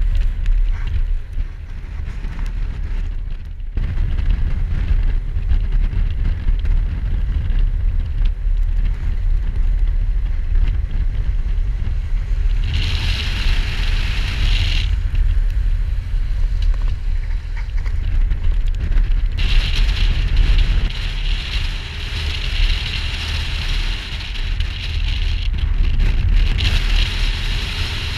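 Motorcycle running along at road speed, with wind buffeting the on-board camera's microphone. A brighter hiss rises for about two seconds around the middle and again for most of the last third.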